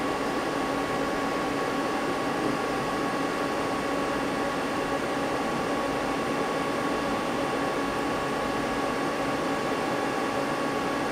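Steady hum of a powered-up Mazak CNC lathe standing idle, fan-like noise with a few steady tones and no cutting.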